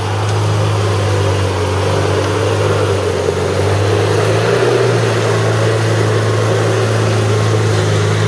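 Lifted Suzuki Samurai's engine running steadily at low revs as it crawls over rock close by, a loud continuous drone that steps up slightly in pitch about halfway through.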